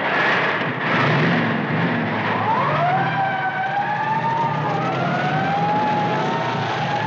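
Vehicle engine and road noise, with a siren winding up about two and a half seconds in and then wailing with a slightly wavering pitch.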